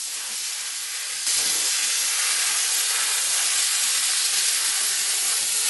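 Pressure grit blaster hissing steadily as abrasive grit is blasted onto a steel gas pipe and its compression coupling to strip it to bare metal. The hiss grows louder a little over a second in.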